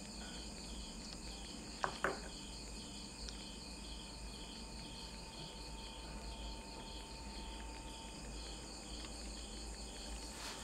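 Insects chirping steadily in a regular pulsing rhythm over a higher continuous trill. Two short clicks come about two seconds in.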